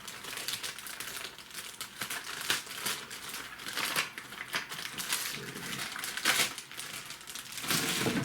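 Cardboard packaging and plastic parts being handled: rustling and crinkling with scattered light clicks and taps.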